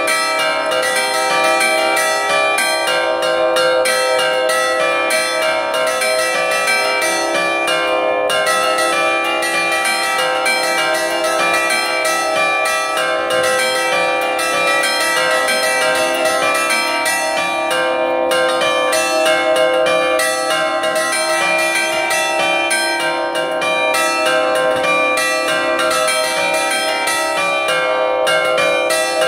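A five-bell concert tuned in C (big bell cast by Pasqualini, the others and a small sonello bell by Allanconi) with the bells hanging still and their clappers pulled on ropes by hand: a rapid, continuous sbacioccata chime in the Reggio Emilia style, the strikes thinning briefly about eight and eighteen seconds in.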